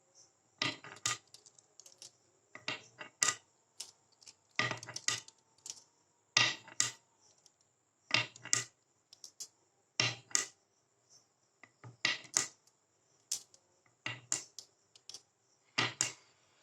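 Marbles clicking and clacking along the course in short clusters, often in pairs, about every two seconds.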